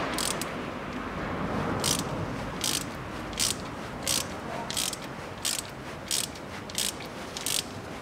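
Ratchet wrench clicking in regular strokes, about one every two-thirds of a second, as it winds a long bolt down into the cylinder head to press a valve open.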